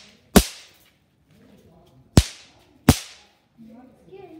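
Throw-down firecrackers going off in three sharp cracks: one about half a second in, then two more about two and three seconds in. Each crack has a short echo.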